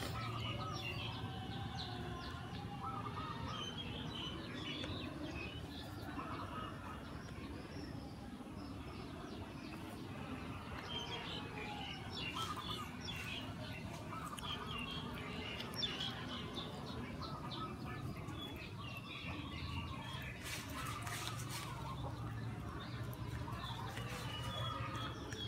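Small birds chirping and chickens clucking now and then over a steady low hum. A cat gnawing a cooked chicken bone adds a few faint crunches and clicks.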